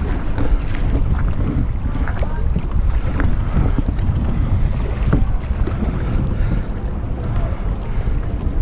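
Wind buffeting the microphone while a sea kayak is paddled through choppy water, with paddle blades dipping and water splashing against the hull.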